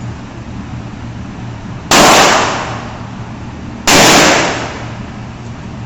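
Two handgun shots about two seconds apart, each a sharp, loud crack that trails off over about half a second.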